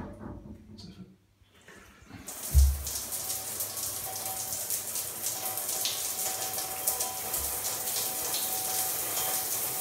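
Large square ceiling-mounted rain shower head turned on: after about two seconds of quiet, the water comes on with a low thump and then runs as a steady hiss of falling spray, with a faint steady tone under it.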